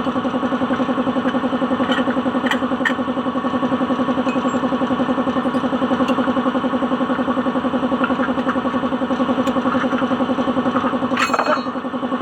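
Suzuki DA16's small engine idling with a steady, even pulsing beat, with a few light clicks and a brief sharp sound near the end.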